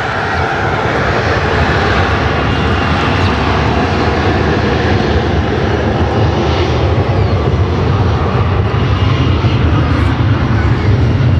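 Jet airliner engines running loud, a dense rumbling roar that slowly gets louder.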